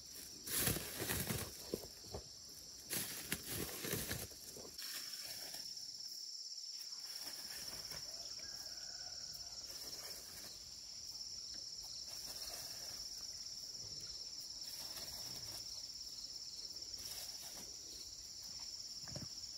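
Crunching and scuffing of loose, dry soil close by for the first few seconds, then a steady high-pitched drone of insects with faint scuffs in the dirt.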